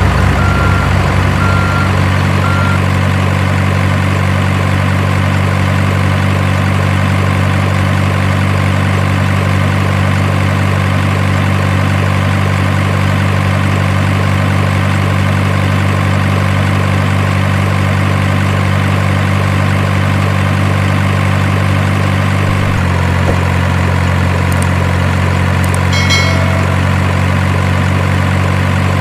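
Truck engine sound idling steadily, with reversing beeps that stop about three seconds in; the engine note shifts slightly lower about 23 seconds in.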